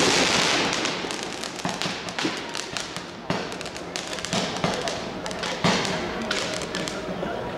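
Street fireworks: a loud crackling burst fading away at the start, then scattered sharp bangs and pops from firecrackers and rockets, roughly one a second.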